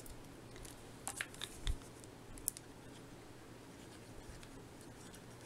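Faint handling of a paper cutout being glued: a few soft clicks and light rustles over a low steady hum.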